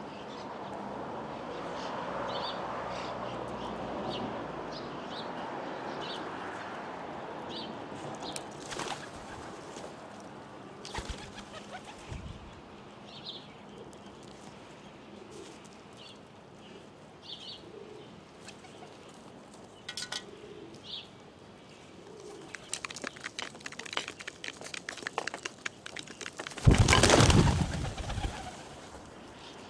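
Pigeons at a feeding spot: soft low coos and short high chirps, a run of light clicks, then a loud burst of wing flapping near the end.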